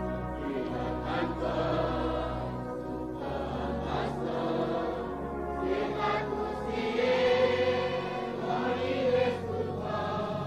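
Background choral music: a choir singing long held notes over a low sustained bass that changes pitch twice.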